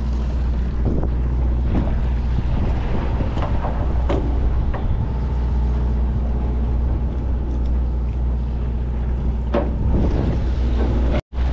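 Steady low drone of a large fishing boat's engines running, with wind noise on the microphone and a few faint knocks. The sound cuts out for an instant near the end.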